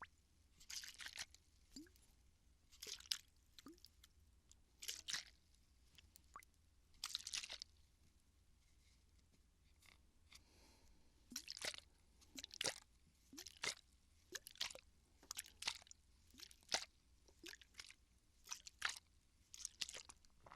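Water bottle being handled close to the microphone for ASMR, giving irregular crinkling crunches and squishes about once a second.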